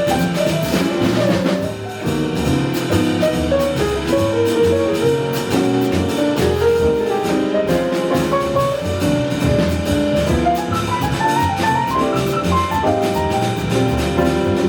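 Small jazz band playing live: drum kit and cymbals keeping time under a bass line, with a melodic lead line moving over the top.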